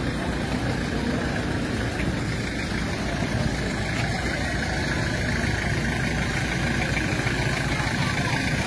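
A motor vehicle engine idling steadily close by.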